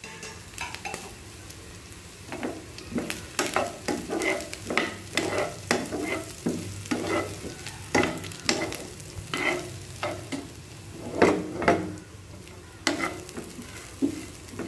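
Steel spoon stirring and scraping grated coconut and whole spices around a nonstick kadai, in repeated strokes that get busier about two seconds in, over a light frying sizzle.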